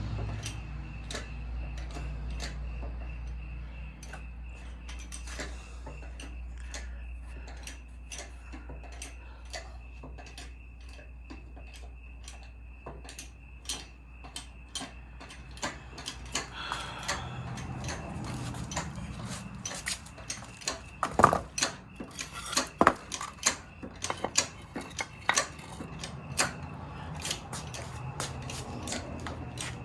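Hydraulic jack being pumped to raise a bus engine cradle: a run of metallic clicks and knocks at about two a second. They grow sharper past the middle, with a few louder metal knocks about two-thirds of the way through.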